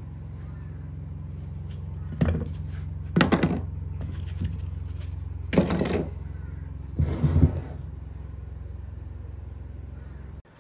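A steady low electric hum with four short, loud, noisy knocks or scrapes about 2, 3, 5.5 and 7 seconds in. The hum cuts off abruptly near the end.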